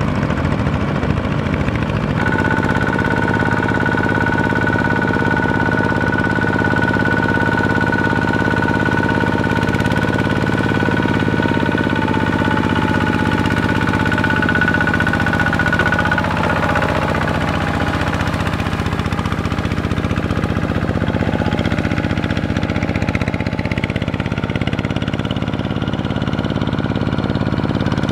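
Kubota ZT single-cylinder diesel engines of two-wheel walking tractors running under load as they drag cage wheels and a leveling board through paddy mud, a steady knocking engine note. A steady high whine sounds over it from about two seconds in until about halfway.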